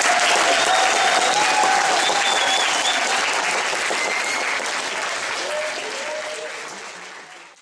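Audience applauding, slowly dying down, with a few voices over it.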